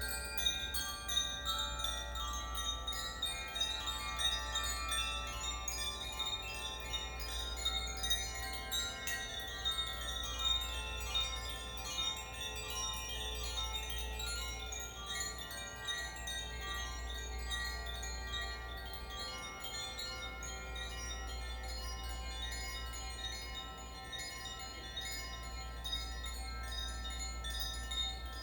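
Koshi chimes being swung by hand, their tuned metal rods struck in quick, irregular clusters so that the bright, high notes ring on and overlap into a shimmering wash. A steady low hum runs underneath.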